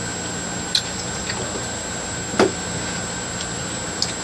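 A few small mouth clicks and a short lip smack about two and a half seconds in, from sucking on sour gum, over a steady background hiss.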